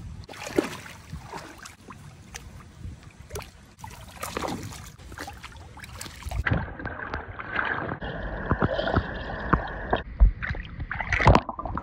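Water sloshing and splashing as dogs paw and step about in a shallow kiddie pool, in irregular splashes. About halfway through the sound turns muffled, as heard from underwater, with bubbling and louder splashes.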